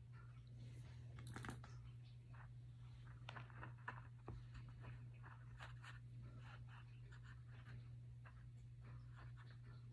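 Faint crunching and clicking of plastic aroma beads as air-vent clips are pressed down into them in a mold, over a low steady hum.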